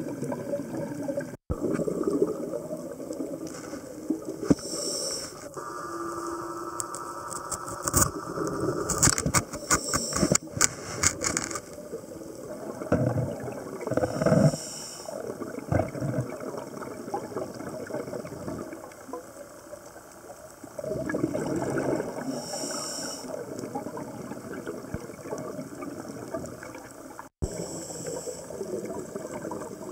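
Underwater sound of a scuba diver breathing: regulator exhaust bubbles gurgle out in bursts every few seconds over a steady watery hiss, with a patch of clicking about a third of the way in. The sound drops out briefly twice.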